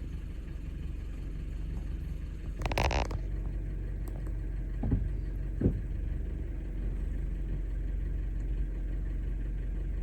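A vehicle engine running steadily, a low even hum. A short loud rustling noise comes about three seconds in, and two light knocks around five seconds.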